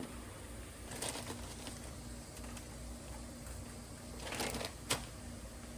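Parchment paper crinkling as it is handled, in short rustles about a second in and again near the end, with a sharp click just before the end, over a faint steady hum.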